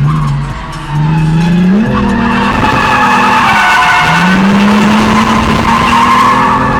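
Drift car's engine revving hard while its rear tyres squeal through a slide. The revs drop briefly about half a second in, then climb and hold high.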